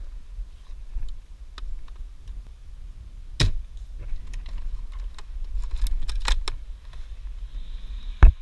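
Handling noise from an airsoft sniper rifle carrying a scope-mounted camera: scattered sharp clicks and knocks over a low rumble, a cluster of clicks about six seconds in, and one sharp loud crack near the end.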